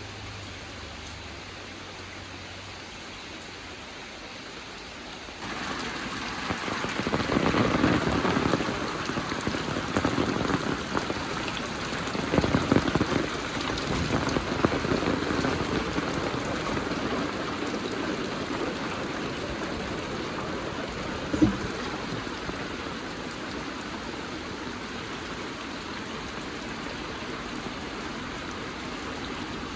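Heavy rain falling as a steady hiss. About five seconds in it suddenly gets much louder, with uneven heavier gusts of patter over the next ten seconds. A single sharp knock stands out a little after the middle.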